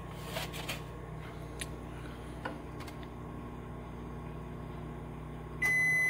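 Over-the-range microwave oven running with a steady hum through the last seconds of its countdown, with a few faint ticks. Near the end it shuts off and gives one long, high beep to signal that the cook cycle is finished.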